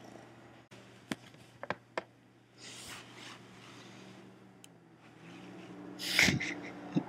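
Handling and rustling noise: a few sharp clicks, short bursts of rubbing on fabric, and one louder rub about six seconds in, over a low steady hum.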